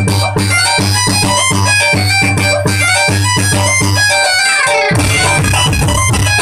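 Fast DJ dance remix with a pumping bass beat and a fiddle-like lead melody. About four and a half seconds in, a falling sweep breaks the beat and the bass comes back fuller.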